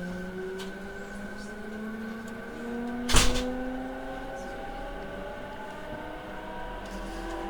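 E217-series electric train heard from inside the car as it accelerates: the traction motors and inverter whine in several tones that rise slowly in pitch together. One sharp clank comes about three seconds in.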